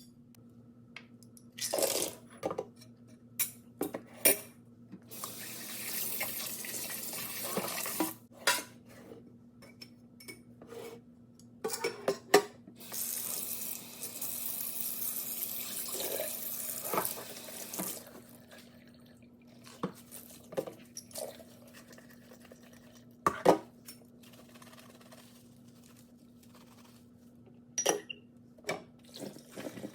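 Water running from a tap in two spells of a few seconds each, with dishes and utensils clattering between and over it, as when washing up at a kitchen sink. A steady low hum sits underneath.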